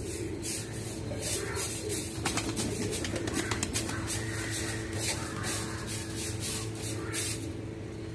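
Domestic pigeons cooing, with scattered short rustles and clicks throughout.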